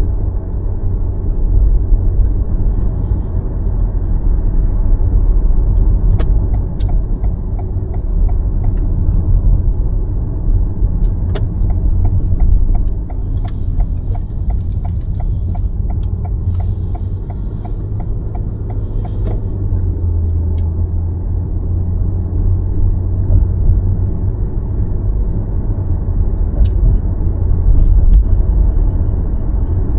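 Car driving along, a steady low road and engine rumble throughout. Two stretches of regular, evenly spaced ticking sound in the middle.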